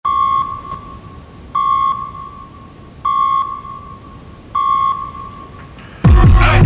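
Four electronic pings about a second and a half apart, each a clear high tone that rings on and fades. About six seconds in, a hip-hop beat with deep sliding bass and quick hi-hats drops in loudly.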